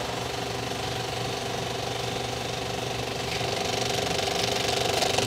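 Cinema film projector running: a steady, rapid mechanical clatter of the film drive with a constant hum under it, growing slightly louder toward the end, with a sharp click at the very end.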